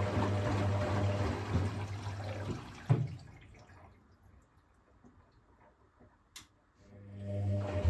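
Hotpoint WMEF641 washing machine filling: water runs into the drum with a steady low hum, which cuts off with a knock about three seconds in. After a few seconds of near quiet and a single click, the hum and water sound return near the end.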